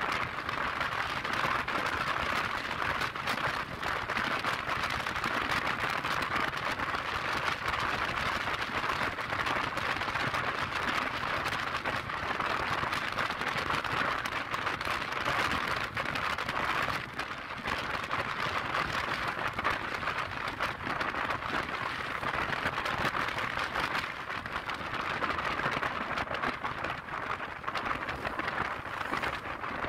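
Steady rushing hiss of wind and road noise on the microphone of a moving scooter at cruising speed, with no distinct engine note or sharp sounds standing out.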